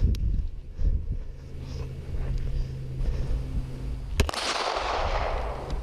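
Footsteps on asphalt, then a single shot from a .45 ACP 1911 pistol about four seconds in, its report echoing and dying away over the next second and a half.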